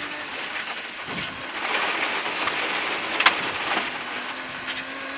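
Gravel and loose stones spraying against the underside and wheel arches of a rally car on a gravel stage, heard from inside the cabin as a dense, rain-like rattle that is loudest through the middle, with a sharp stone knock about three seconds in. The engine's steady note sits underneath near the start and end.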